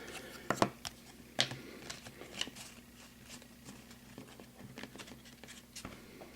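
Trading cards being handled: a scatter of light clicks, taps and rustles as cards are shuffled and set down, more of them in the first couple of seconds.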